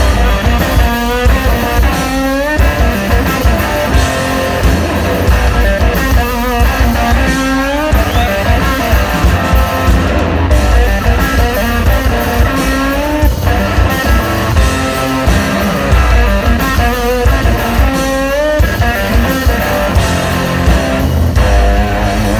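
Live rock band playing loud: an SG-style electric guitar plays a distorted lead with repeated string bends over heavy drums.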